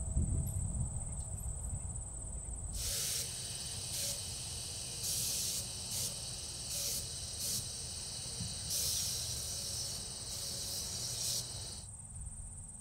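A hose-fed sprayer hissing in about eight bursts, most under a second and one lasting over a second, starting about three seconds in. Under it is a steady high insect drone and, in the first few seconds, a low rumble.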